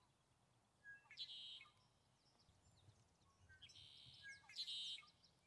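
Red-winged blackbirds singing faintly: about three conk-la-ree songs, each a few short notes followed by a buzzy trill, one near the start and two close together near the end.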